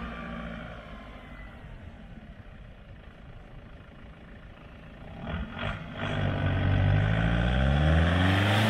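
Nissan Patrol 4WD engine running as the vehicle drives on soft sand: a low hum at first, then much louder from about six seconds in as it comes up close, with the engine pitch rising and falling near the end.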